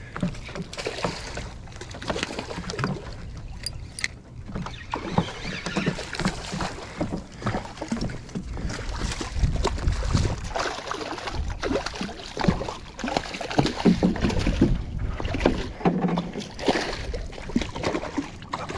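A hooked red drum splashing at the surface beside a wooden dock during the fight, with irregular knocks and clicks from the Shimano Stradic 2500 spinning reel and rod being worked.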